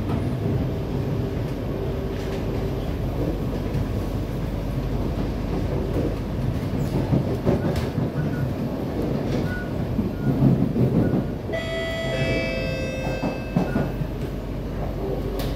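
Cabin noise of an SMRT C151B (Kawasaki-Sifang) electric train running on the East-West Line: steady rumble of wheels on rail and running gear. About two-thirds of the way in, a whine of several steady tones sounds for about two seconds.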